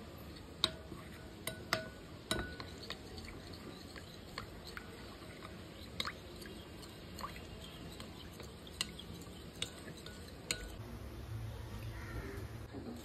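Metal spoon stirring cornflour slurry in a ceramic bowl, with scattered light clinks of the spoon against the bowl. A steady low hum comes in near the end.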